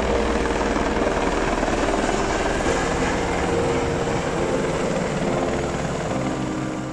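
Helicopter flying low and descending to land, its rotor and engine a steady, loud thrum that eases off slightly near the end.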